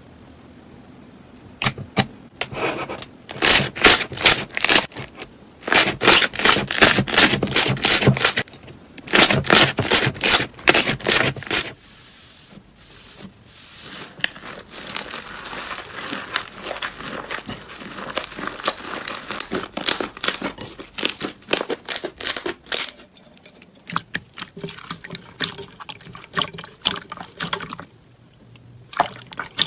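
Slime being squeezed and poked by hand, giving runs of rapid wet popping clicks as air pockets burst. Through the middle it becomes a steadier crackling, then thins to scattered pops near the end.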